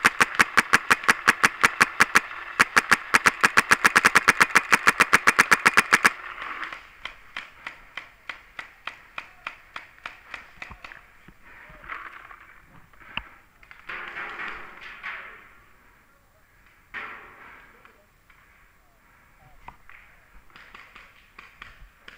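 Dangerous Power G5 paintball marker firing in rapid, even strings of about six shots a second, with a brief break about two seconds in. After about six seconds it gives way to slower, scattered, quieter shots.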